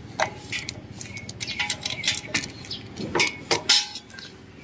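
Scattered short clicks and clinks of plastic wire connectors and small metal parts being handled while a generator's voltage regulator is wired in, loudest about three seconds in, over a low steady rumble.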